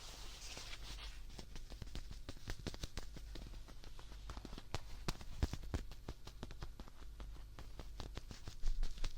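Close-miked handling of a plush teddy bear for ASMR: a soft rustle at first, then rapid, irregular crackling clicks and creaks as it is squeezed and rubbed.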